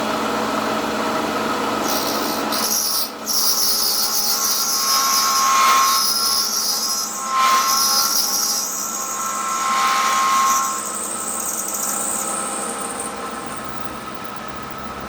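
Milling machine's end mill cutting through metal plate about 3/16 inch thick: a steady high-pitched squeal with a cutting hiss that comes in about two seconds in and swells three times before easing off.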